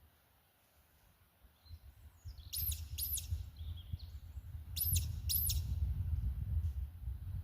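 A bird calling: two pairs of quick, high whistled notes, each rising and then falling, about two seconds apart. Under them, from about two seconds in, a low rumble of wind or handling on the microphone.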